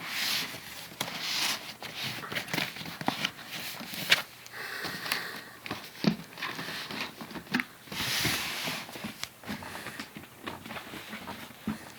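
Packaging being handled during an unboxing: rustling, crinkling bursts and scattered clicks and knocks, the sharpest about four seconds in.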